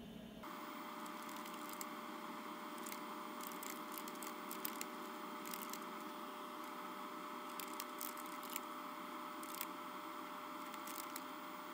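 Computer keyboard keystrokes in short, scattered bursts as commands are typed, over the steady hum of the running PC with a faint constant whine.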